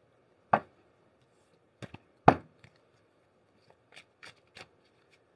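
A deck of tarot cards being handled by hand: a few sharp taps and clacks, the loudest a little over two seconds in, then lighter card flicks as shuffling begins near the end.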